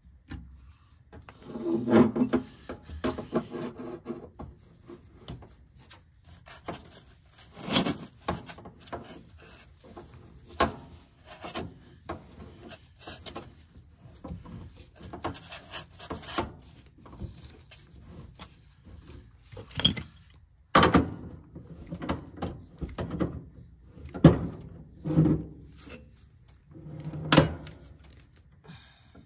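Irregular knocks, clicks and rubbing from hands handling gas fittings and tools while threads are doped, with a few louder knocks.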